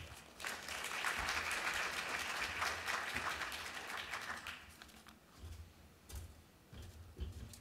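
Audience applauding, starting about half a second in and dying away after about four and a half seconds, followed by a few faint clicks and knocks.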